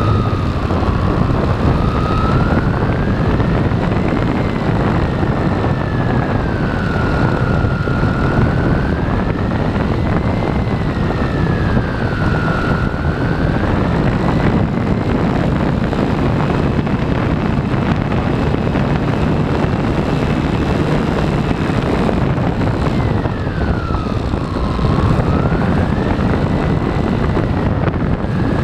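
RC airplane in flight, heard from on board: a steady rush of air over the airframe, with the motor and propeller whine slowly rising and falling in pitch every few seconds and holding higher for a while past the middle.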